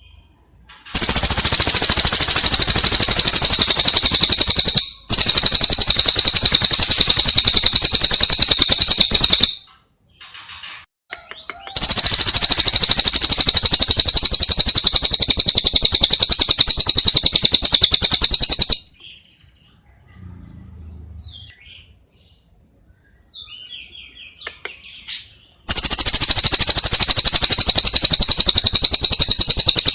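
Songbird singing four long, loud bursts of very fast, rapidly repeated high chattering notes, each lasting several seconds. Short gaps between the bursts hold fainter scattered chirps.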